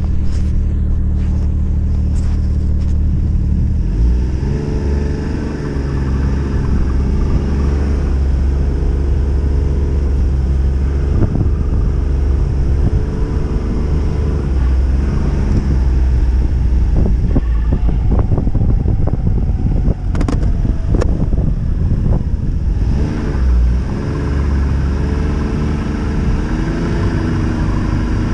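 Snowmobile engine heard from on board, running steadily for the first few seconds, then rising and falling in pitch as the throttle opens and eases off while riding. Scattered knocks and rattles come through the middle stretch.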